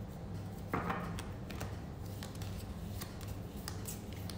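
Soft, scattered clicks and light handling noises, one a little stronger about a second in, over a low steady hum.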